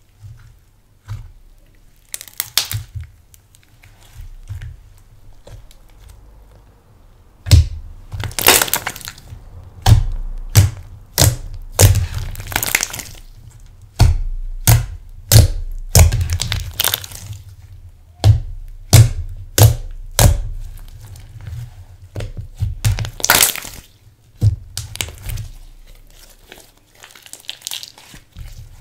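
Hands squeezing, stretching and folding thick slime with eyeshadow mixed in, giving loud, irregular crackles and pops as trapped air pockets burst. The pops come in quick clusters after the first few seconds, with quieter squishing between.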